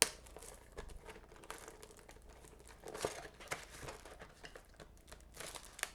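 Plastic wrapping on a trading card box or pack crinkling and crackling as hands work at it and try to tear it open, in scattered faint crackles that pick up about three seconds in and again near the end.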